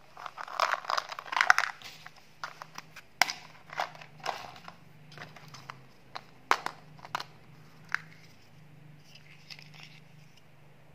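Hands handling hard candy and its plastic packaging. A burst of crinkling and rattling comes in the first two seconds, then a string of sharp plastic clicks and snaps as a round bubble-gum tape case is handled and opened.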